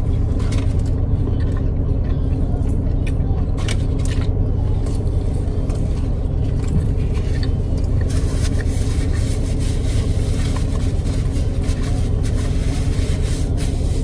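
Steady low rumble throughout, with scattered short clicks and crackles of eating and handling takeout food and its packaging.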